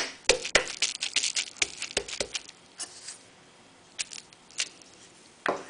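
Paper-backed bubble wrap being handled and its bubbles popped: a run of quick, irregular sharp clicks and small pops, thickest in the first couple of seconds, then a few scattered ones.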